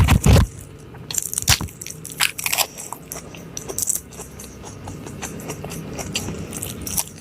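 Close-miked eating: crisp crunching bites and chewing, with two loud knocks right at the start.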